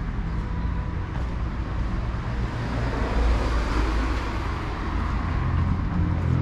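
A car passing along the street, its tyre and engine noise growing louder toward the middle and then fading, over a steady low traffic rumble.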